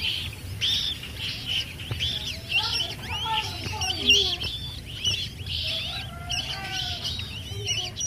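A downy mandar (rail) chick peeping: short, high, arched cheeps repeated about twice a second.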